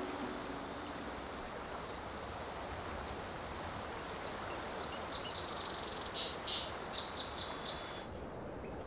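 Steady outdoor background hiss with small birds chirping: a run of short, high chirps about halfway through that thins out near the end.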